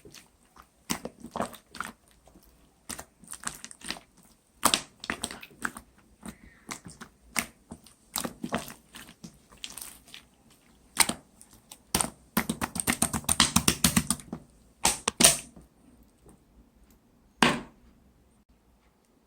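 Clear slime being squeezed and poked by hand, giving irregular wet clicks and pops, with a quick run of dense crackling pops about two-thirds of the way through.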